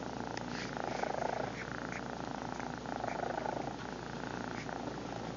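Domestic cat purring steadily while being stroked, the purr swelling louder about a second in and again around three seconds in.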